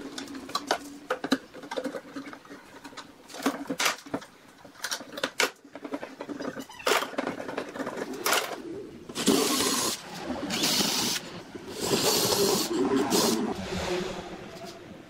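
Metal bar clamps being loosened and taken off a wooden frame: a run of sharp clicks and knocks from the clamp jaws and bars, then several longer scraping, rasping passes about two-thirds of the way in.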